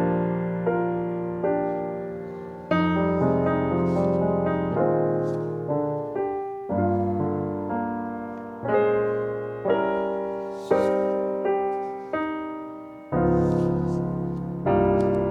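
Background music: a slow, gentle piano piece, its chords struck afresh about every second or two and left to ring.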